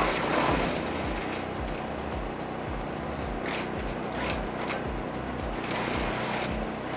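Petrol wood chipper with a 15 hp Lifan four-stroke engine running, with short rushes of noise as branches go through the cutting disc, the loudest at the start, around the middle and near the end. A regular low beat of background music runs underneath.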